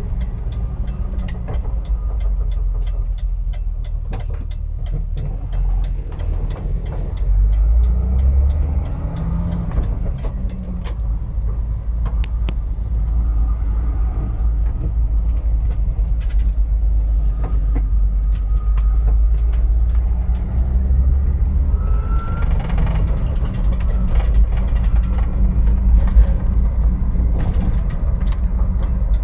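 2001 Jeep Wrangler TJ engine running, with a faint whine that tracks engine speed. The engine gets louder twice, and a short rising whine stands out about two-thirds of the way through.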